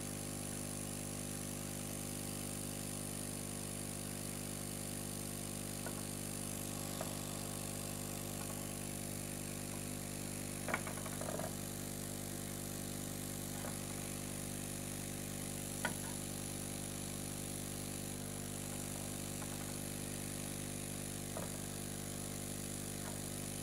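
Hot-air rework gun blowing steadily, its blower fan humming, while a replacement MOSFET is reflowed onto a motherboard's VRM section. A few light clicks sound through it, the clearest about eleven and sixteen seconds in.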